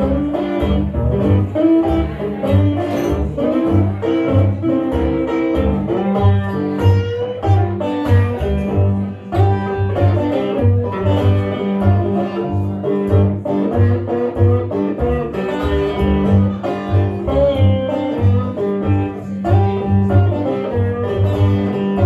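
Live acoustic blues instrumental passage: picked guitar over a steady, pulsing bass line, with no singing.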